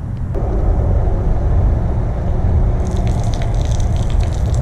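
A 12-volt bilge pump switches on about half a second in and runs with a low hum. Nearer the end, water starts spraying from the showerhead and splattering onto the grass, with wind rumbling on the microphone.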